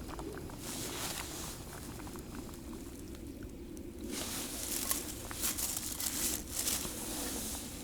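Rustling and crinkling of handled material in two spells, a short one near the start and a longer one in the second half, over a steady low hum.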